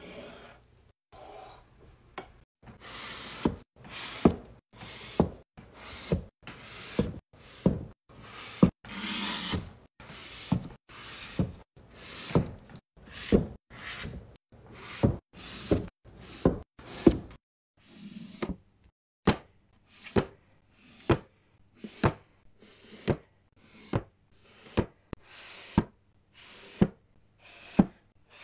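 Books being slid along and tapped down onto a wooden shelf: a steady series of sharp knocks, about one and a half a second, some led by a short scrape of a book sliding. Past the halfway point the knocks turn thinner and sharper.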